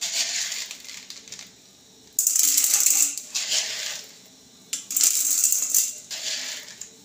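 Dried popcorn kernels poured from a plastic bowl into a heated steel pot with a little oil, rattling against the metal. They go in as several short pours of about a second each, each starting suddenly and trailing off.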